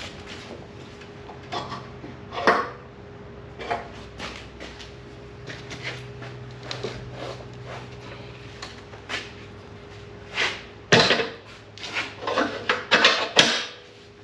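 Steel log catcher bracket being handled and fitted against a log splitter's frame: scattered metal clanks and knocks, coming thicker and louder about eleven seconds in.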